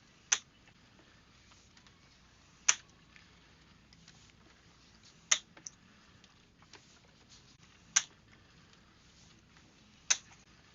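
Sharp, brief clicks repeating at a fairly even pace, about one every two and a half seconds, over a faint steady background.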